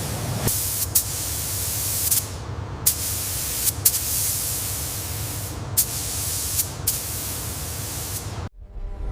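A steady hissing spray noise, brightest in the treble, broken by about ten sharp clicks, cutting off abruptly shortly before the end.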